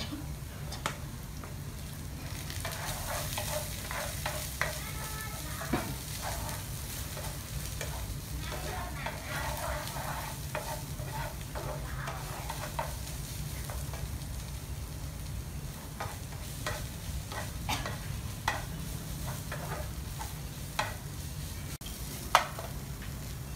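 Wooden spatula stirring and scraping a mixture frying in oil in a nonstick frying pan on a portable gas stove, with a steady sizzle over a low hum. The spatula knocks on the pan now and then, most sharply near the end.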